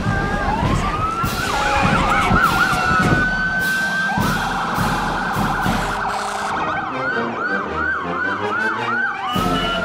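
Fire engine siren: it winds up, switches to a fast up-and-down yelp, then holds a steady wail. About seven seconds in it yelps again, several sweeps a second, and it falls in pitch near the end.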